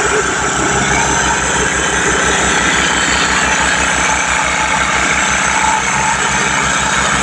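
A machine running steadily with a rapid, even low pulsing, about seven beats a second, under a loud noisy din.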